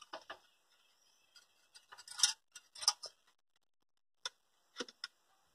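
Sparse, faint metallic clicks and clinks of hand tools and fittings being handled on the tractor's diesel engine, in small clusters, the loudest about two and three seconds in.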